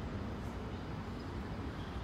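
Steady low outdoor background rumble, with no clear ball strikes.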